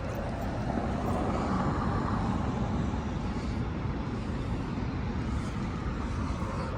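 Steady low rumble of background noise with no alarm horn or chime sounding.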